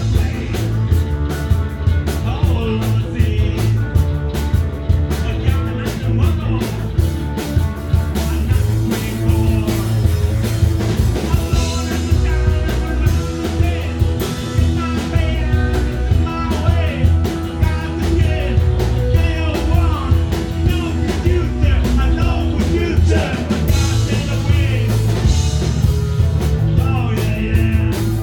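Live punk rock band playing loud, with guitar, bass and drums under a sung vocal.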